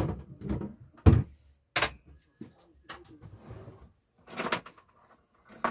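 A series of sharp knocks and clatters from handling the cupboards and kitchenware in a campervan kitchenette. The loudest knock comes about a second in, and a short cluster of knocks follows past the middle.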